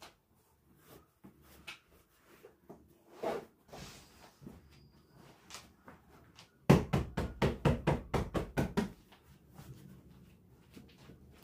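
Scattered light knocks and clicks of household objects being handled, then a rapid run of sharp knocks, about six a second for two seconds, in the second half.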